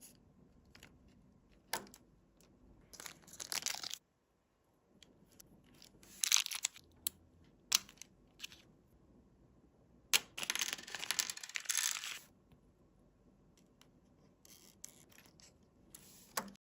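Toy-car packaging being torn open and handled: three stretches of tearing and rustling, the longest about two seconds, with sharp clicks and taps in between.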